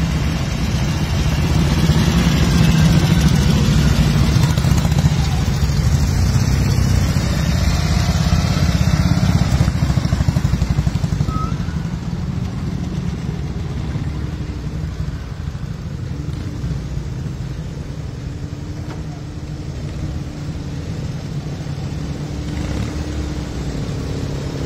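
Engines of vintage motorcycles running as a procession rides past, loudest in the first ten seconds and then quieter, with a steadier engine note after that as a sidecar outfit approaches slowly.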